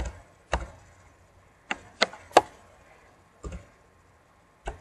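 Computer keyboard keys and mouse buttons clicking: about seven separate clicks at irregular intervals, the loudest a little under halfway through.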